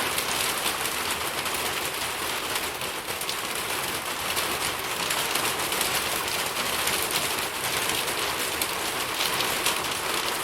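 Steady rain falling on a surface, an even hiss full of fine drop patter, with no thunder.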